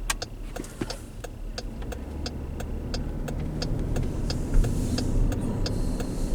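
Steady low engine and road rumble heard from inside a 2016 Dodge Durango's cabin, with regular light ticks over it.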